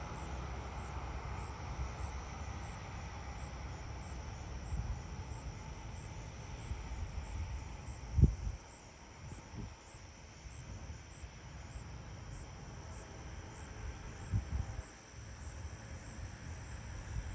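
Insects chirping at dusk, a high, evenly spaced run of chirps about one and a half a second, over a low rumble, with a dull thump about eight seconds in.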